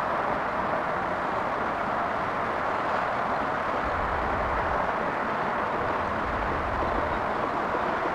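Steady roar of jet airliner engines, even in level, with a deeper rumble joining for a few seconds in the middle.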